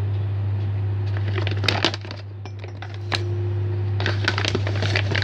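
A hand working inside a metal bread machine pan, making scattered light clicks and crackles, thickest near the end, over a steady low hum.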